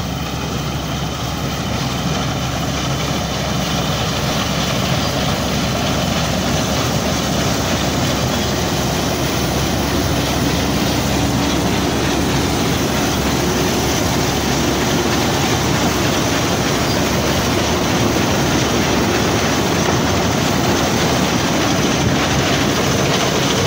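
Massey Ferguson MF 186 combine harvester running while harvesting wheat. Its engine and threshing machinery make a dense, steady noise that grows a little louder over the first few seconds.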